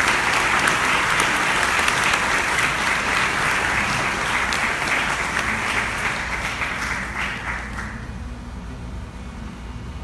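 Audience applauding in a lecture hall, the clapping thinning and dying away about eight seconds in.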